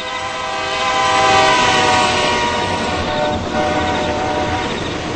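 Metra commuter train horn sounding one long continuous chord, loud. It swells to its peak about a second and a half in, with the rumble of the train underneath.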